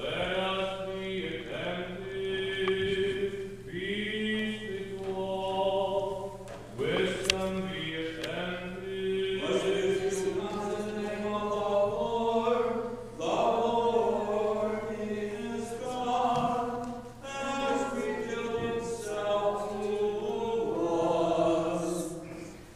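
Congregation singing Byzantine liturgical chant, with long held notes in slow phrases.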